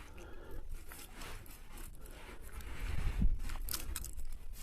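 Faint close rustling and scraping handling noises with a few small clicks, and a louder soft knock about three seconds in. A deeply swallowed hook is being worked out of a just-caught fish's throat.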